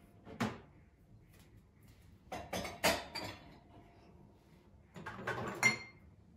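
Dishes and cutlery clinking as they are handled: a single knock, then two short clusters of clatter, the last ending in a brief ring.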